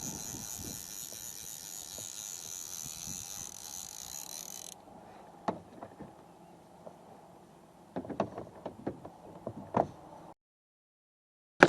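Water lapping around a canoe, with occasional sharp knocks on the hull, and a steady high hiss for the first few seconds. The sound cuts to dead silence about a second before the end.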